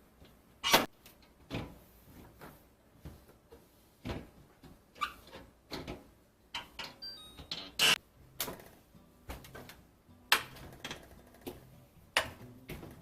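Irregular clicks, knocks and rustles of groceries and storage containers being handled and put away, with a sharp knock about a second in and another about two-thirds of the way through.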